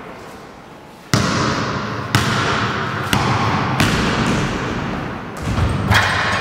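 A basketball bouncing on a sports-hall floor, with sharp hits about a second apart, each smearing out in the hall's echo. A louder hit comes near the end.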